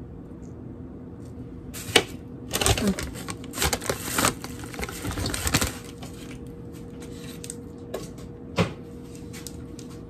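Snack packaging, a plastic chip bag and a foil wrapper, crinkling and rustling as it is handled. There is a sharp click about two seconds in, a dense crackling for about four seconds after it, and another sharp click near the end.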